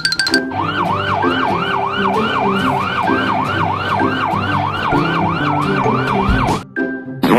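Toy fire truck's electronic siren wailing in fast, even up-and-down sweeps, about three a second. It stops abruptly near the end, over light background music.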